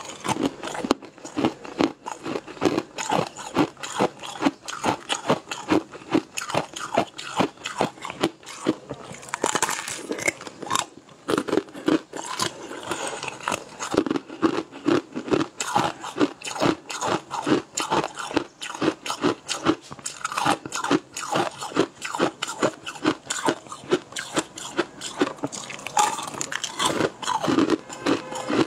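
Close-miked eating sounds: sharp, rapid crunching and chewing as bites are taken from a brittle, glassy, translucent blue food.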